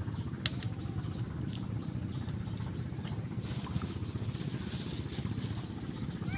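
A steady low engine rumble with a fast, even pulse, like a small motor running.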